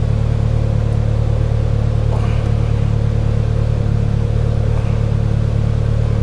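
Polaris Slingshot engine idling steadily, a constant low hum.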